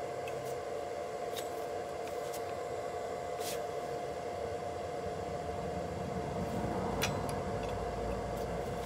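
A steady hum underlies a few light clicks and taps of metal hand tools and small parts being handled, with a sharper click about seven seconds in.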